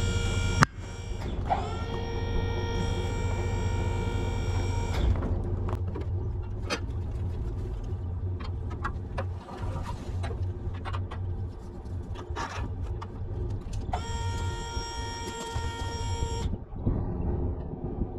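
Electric hydraulic pump on a dumpster trailer whining as it spins up about a second in and runs steadily for about four seconds, then runs again for a couple of seconds near the end. Scattered metallic clanks and ticks come in between.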